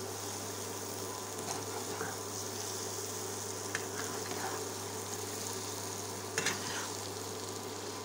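Grated potato and egg bhaji sizzling in oil in a wok while a spatula stirs it. Sharper scrapes of the spatula against the pan come about one and a half, four and six and a half seconds in.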